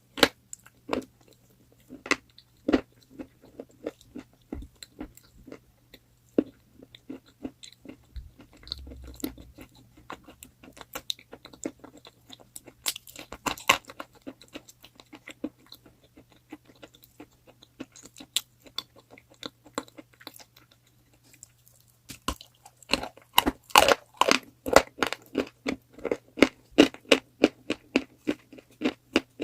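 Close-up crunching and chewing of hard chalk: irregular sharp crunches with pauses between them. There is a flurry about halfway through, and the crunching gets denser and louder for the last several seconds.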